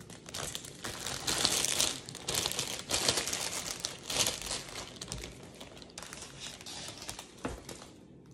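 Clear plastic packaging crinkling and crackling as it is handled and pulled open, loudest in the first half, then lighter rustling.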